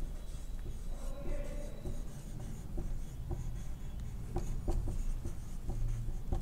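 Whiteboard marker writing on a whiteboard: an irregular run of short squeaks and scratches as letters are drawn.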